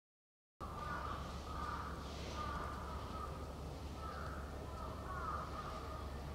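Crows cawing several times over a steady low outdoor hum; the sound starts about half a second in, after a moment of silence.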